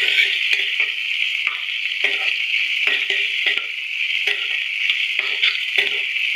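Onions, whole spices and cashews sizzling in mustard oil in a steel kadhai, a steady hiss, while a spatula stirs them with short scraping strokes against the pan roughly twice a second.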